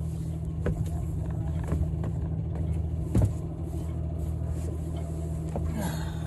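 A small motor running with a steady low hum, with a few light knocks and a louder one about three seconds in.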